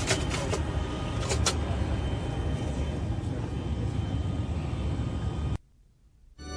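Steady rushing hum of a Boeing 747-400 freighter's interior noise on the flight deck, with a couple of clicks near the start and about a second and a half in. It cuts off suddenly to near silence about five and a half seconds in.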